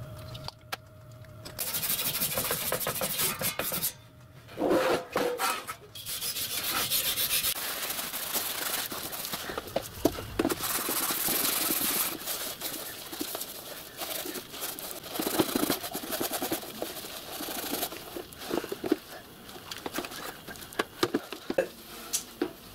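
A soldered metal water tank being scrubbed by hand with a scourer in soapy water: rough, repeated rubbing and scraping strokes against the metal.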